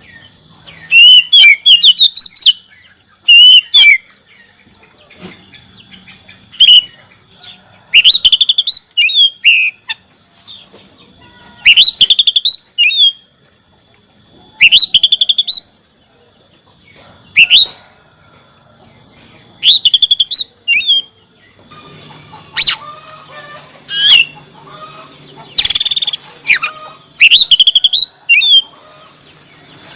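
Oriental magpie-robin (kacer) singing loud bursts of rapid, sweeping whistled phrases, one burst every two or three seconds. A brief rush of hiss comes near the end.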